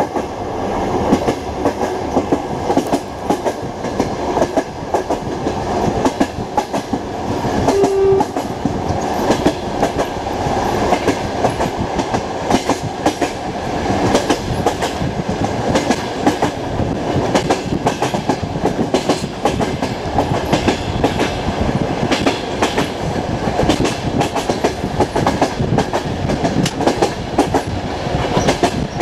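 Running noise of a passenger train coach heard from inside at the window: a steady rumble and rush of wind, with the wheels clattering over rail joints throughout. A brief single tone sounds about eight seconds in.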